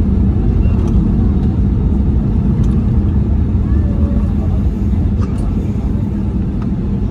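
Cabin noise of an Airbus A320neo rolling on the ground after landing: a loud, steady low rumble with a constant hum, easing off slightly toward the end, and a few faint clicks and rattles.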